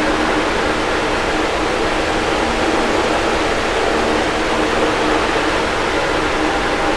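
Electric fan running steadily: an even rush of air with a faint steady motor hum under it.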